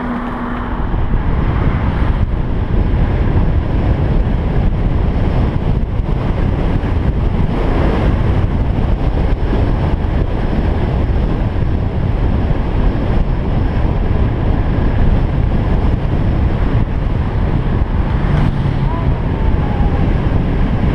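Wind buffeting the microphone of a camera on a bicycle coasting fast downhill: a loud, steady rush that grows louder about a second in and then holds.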